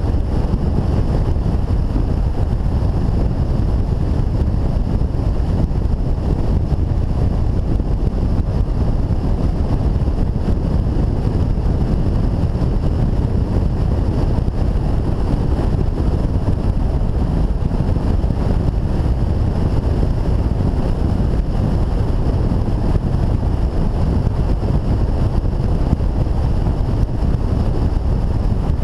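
BMW touring motorcycle cruising at a steady speed, heard as an even rush of wind and road noise over the bike-mounted microphone, with no clear engine note or change in pace.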